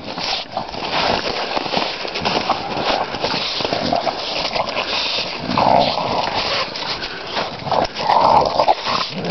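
English bulldogs wrestling in snow close to the microphone, growling and grunting in play, louder around six seconds in and again about eight seconds in.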